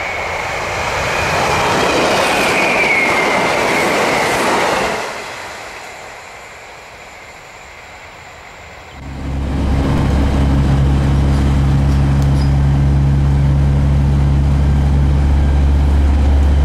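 A passenger train passing close by, with a high whine that dips slightly in pitch as it goes past, then dying away. About nine seconds in, this gives way to the steady low hum of a moving train heard from inside the carriage.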